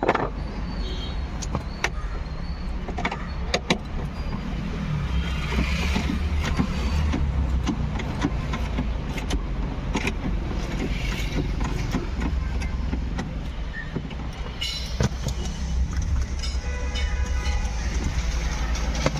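Scattered clicks and light knocks of hand tools and parts while a Ford EcoSport's steering column is being unbolted, over a steady low rumble.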